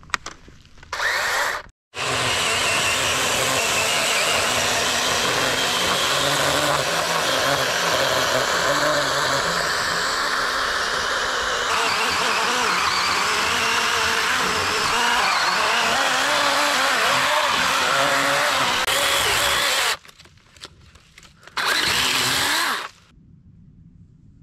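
Electric chainsaw cutting into a tree trunk: a short burst, then a long steady cut of about eighteen seconds that stops abruptly, and one more short burst near the end.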